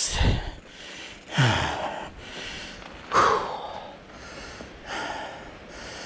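A man's heavy breathing: loud gasping breaths about every one and a half seconds, from the exertion of pushing a mountain bike up a steep trail section.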